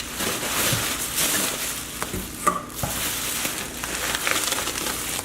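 Plastic packaging rustling and crinkling as items are handled in a meal-kit box, with a few light knocks a couple of seconds in.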